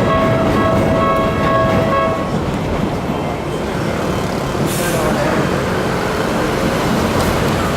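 Level-crossing warning alarm ringing in evenly repeated electronic strokes, then falling silent about two seconds in as the crossing clears, over a steady rumble of passing vehicles. A short hiss sounds about five seconds in.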